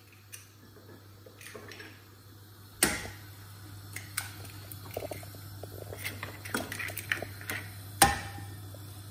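Eggs cracked one by one on the rim of a non-stick frying pan: two sharp shell cracks about five seconds apart, the second the louder. Between them comes a faint crackle of egg frying in hot oil.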